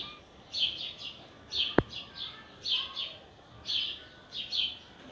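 High, bird-like chirps repeating about once a second, often in pairs, with a single sharp knock a little under two seconds in.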